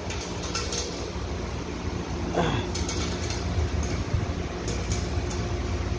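Steady low mechanical hum of running machinery, with a few faint light clicks and a short falling tone about two and a half seconds in.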